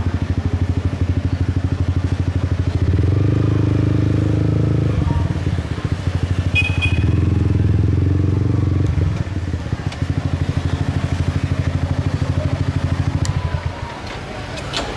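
Motorcycle engine running slowly at low revs with an even beat of firing pulses. It picks up briefly a few seconds in, then cuts off near the end as the bike is parked.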